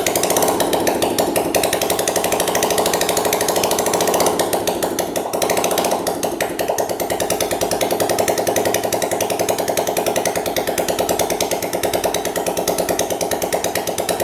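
Honda CG single-cylinder four-stroke motorcycle engine running with no exhaust pipe fitted, a loud, rapid, even beat, on its first start after a top-end rebuild with a new cylinder and piston. It is shut off at the very end.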